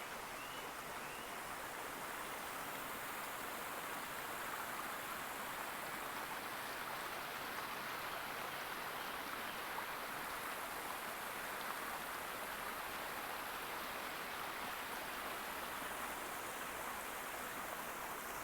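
A small creek running, a steady rush of flowing water.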